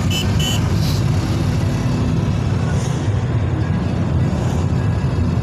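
Steady, loud rumble of road and engine noise from a moving vehicle in city traffic. Two short high beeps sound near the start.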